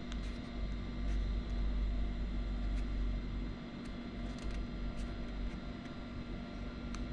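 Steady low rumble and hum of background room noise, with a few faint, sharp clicks scattered irregularly through it.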